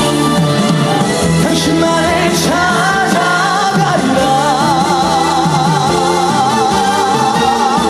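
Live trot song with band backing. A male singer's melody glides through the first half, then from about four seconds in he holds a long note with wide vibrato.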